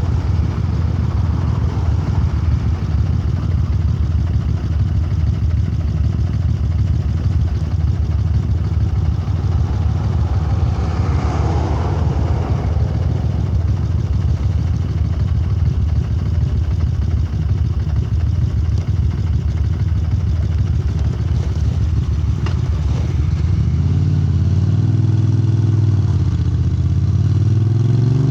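Moto Guzzi transverse V-twin running through Lafranconi silencers, a low, even exhaust note. About three-quarters of the way through, the pitch dips and then climbs as the engine revs up, rising steeply near the end.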